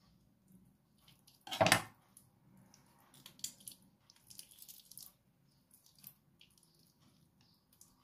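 Hands working raw chicken wing pieces, with soft wet squishing and small clicks. About a second and a half in comes one louder knock, the kitchen knife laid down on the bamboo cutting board.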